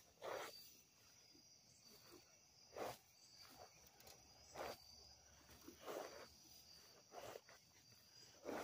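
Faint, slow footsteps on the ground, a soft crunch every second or two, over a faint steady high drone of insects such as crickets.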